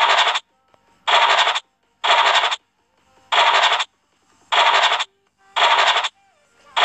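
Online scratch-card game's scratching sound effect, one short burst about once a second, six in a row, each one uncovering a hidden number under a star.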